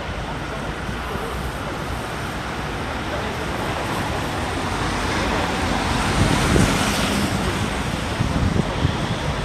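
Street traffic noise with wind on the phone microphone, swelling as vehicles pass about two-thirds of the way through.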